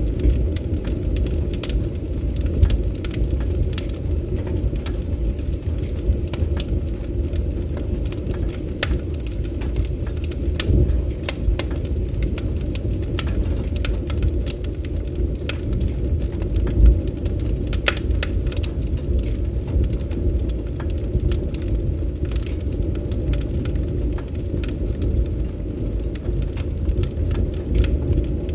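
Wood fire crackling, with frequent sharp pops and snaps over a steady low rumble of flame.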